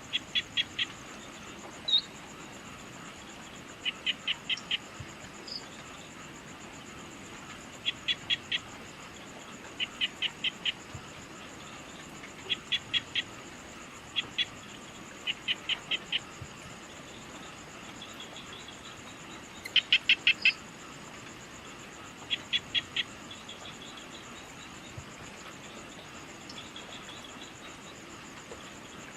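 An animal calling repeatedly in quick bursts of four or five sharp clicking notes, a burst every two to three seconds, over a steady high-pitched insect trill in an evening nature ambience.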